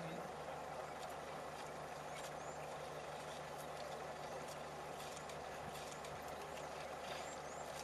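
A vehicle engine idling: a steady low hum under an even hiss, with a few faint high chirps and light clicks over it.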